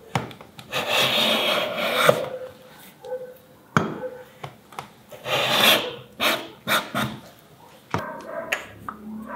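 Small hand block plane shaving a beech strip in strokes, one long stroke about a second in and another past the middle, with a few short ones and sharp knocks between: truing the strip to a 55-degree bevel.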